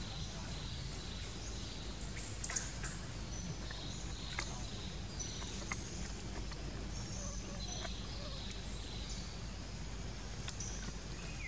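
Outdoor ambience: many short, high bird chirps over a steady low background hum. A pair of sharp clicks about two and a half seconds in are the loudest sounds.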